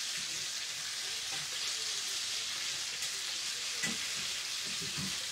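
Chicken pieces frying in hot oil in a stainless steel pan, a steady sizzle as they are turned with a fork. There is one light click about four seconds in.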